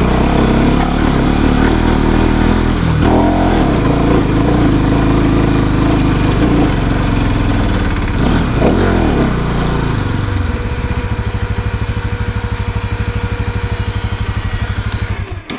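Motorcycle engine running on the move, its pitch falling and rising again twice, then settling into a steady, even pulsing idle for the last five seconds before stopping abruptly at the end.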